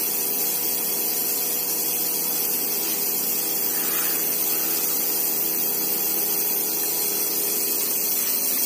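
Electrically maintained tuning fork buzzing steadily, kept vibrating by its make-and-break screw contact and electromagnet coil.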